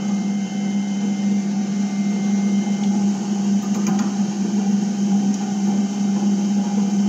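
Metal Master MML 2870 MV benchtop lathe-mill running steadily with its spindle turning. It gives a steady hum with fainter, higher steady tones above it.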